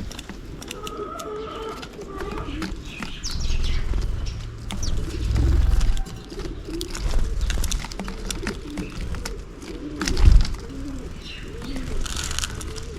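House sparrows chirping in short scattered calls over a steady run of low cooing calls from another bird, with flapping wings and a loud low bump about ten seconds in.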